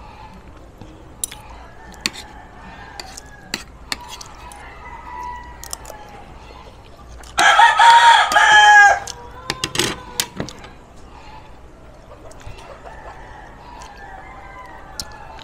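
A rooster crows once, loud, about halfway through, the call lasting about a second and a half. Around it, scattered light clinks of a spoon and fork against a plate.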